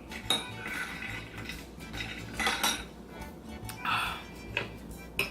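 Cutlery clinking and scraping on a dinner plate during a meal, a few sharp clicks among softer scraping, over background music.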